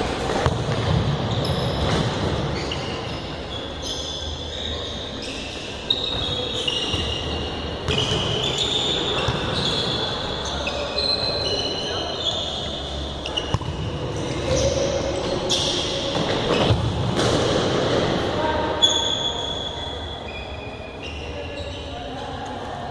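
Futsal being played on a hard indoor court: many short, high squeaks of sneakers on the floor, sharp thuds of the ball being kicked and bouncing, and players shouting, all echoing in a large hall.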